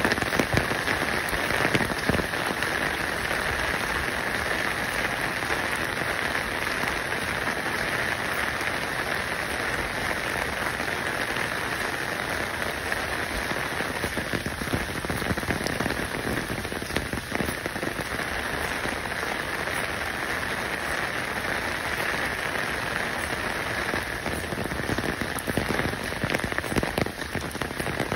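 Steady, even hiss like rain falling on a surface, with no distinct events, voices or music.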